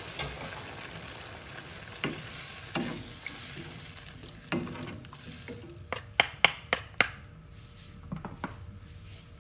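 Two wooden spatulas stir ground pork and squash in broth in a wok, knocking against the pan now and then, with a quick run of sharp taps about six to seven seconds in. Under it, a sizzle fades away over the first few seconds as the water just poured into the hot pan settles.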